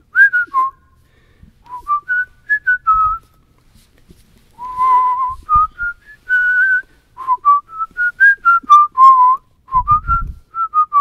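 A man whistling a tune in short phrases of single notes that step up and down, with the big room's echo mostly soaked up by the ring of tube traps around him. A few low thumps, the loudest about ten seconds in.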